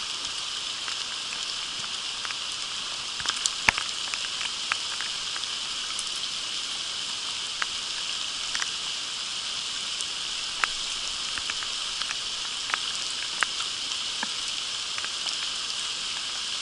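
Steady rain falling on a shallow creek and the leaf litter around it: an even hiss with scattered sharp ticks of single drops, a few clustered about three to four seconds in.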